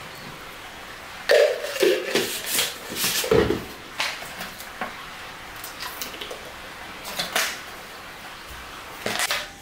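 Kitchen clatter from handling dishes, containers and utensils: scattered knocks and clinks, a few of them ringing briefly.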